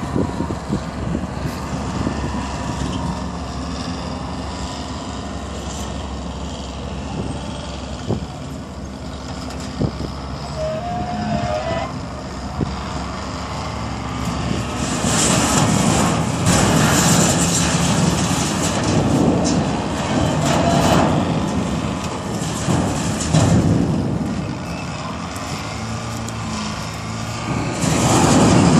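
Diesel engine of a front-end loader running steadily, joined about halfway through by loud crunching, scraping and clanking of sheet metal and debris as the loader pushes into the wrecked elevator top, easing off and building again near the end.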